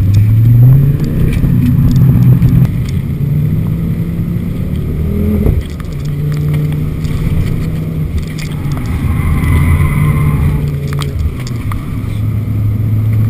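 Ford Focus RS engine heard from inside the cabin, driven hard on track. The revs climb at the start, drop sharply about five and a half seconds in, then climb again.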